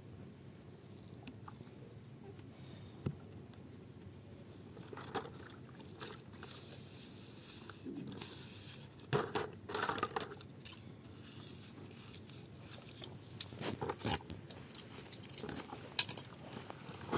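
Dishes being washed by hand in a plastic basin of water: a sponge scrubbing a plate, with scattered clinks, knocks and small splashes, thickest in two clusters partway through and near the end.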